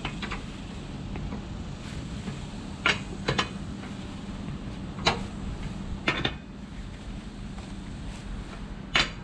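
Sharp metal clinks, a handful at irregular intervals, from the jack's crank handle being turned to lower the vehicle. A steady low hum runs underneath.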